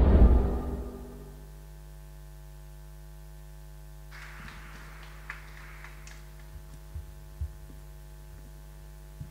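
The end of the dance music dies away in the first second, leaving a steady electrical mains hum. Faint rustling noise and a few soft knocks come in during the second half.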